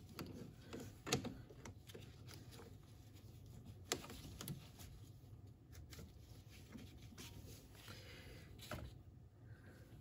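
Faint handling sounds of gloved hands working on hoses and clamps in a truck's engine bay: scattered small clicks and rustles, the sharpest click about four seconds in.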